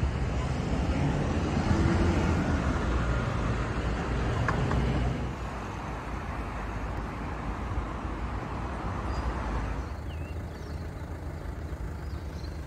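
Road traffic: a vehicle passes with a rise and fall in its hum, loudest in the first five seconds, over a steady low road rumble. Near the end the rumble is quieter and a few faint bird chirps come through.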